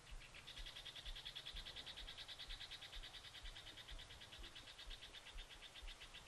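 A small animal's faint, high trill, made of rapid even pulses, starting about half a second in and fading near the end.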